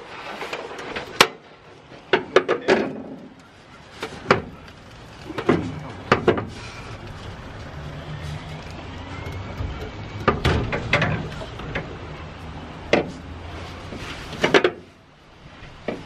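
Irregular sharp metallic clicks and knocks as a ratchet wrench and brass fittings are worked on a chrome air-ride tank, some strokes coming in quick clusters. A low rumble swells and fades in the middle.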